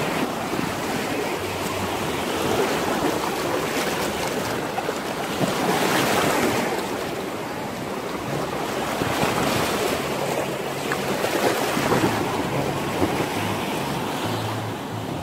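Small waves washing in over a sandy shore, the rush swelling and easing, louder about six seconds in and again near twelve seconds, with some wind on the microphone.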